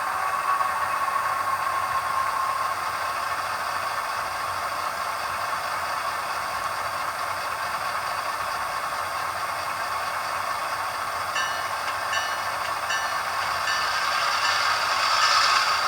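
Model diesel locomotive's sound decoder playing a diesel engine running steadily, thin and hissy with little bass. Short high tones repeat about twice a second for a couple of seconds about two-thirds of the way in.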